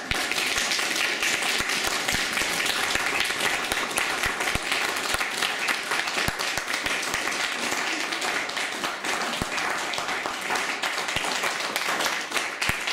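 Audience applause from a small crowd: dense hand clapping that breaks out suddenly and keeps up at a steady level.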